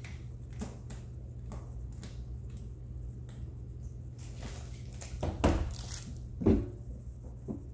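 Small clicks and rubbing as the lock and latch of a Calpak hard-shell carry-on suitcase are pressed and fiddled with. Two loud knocks come about five and a half and six and a half seconds in as the hard case is moved and set down, with a lighter knock near the end.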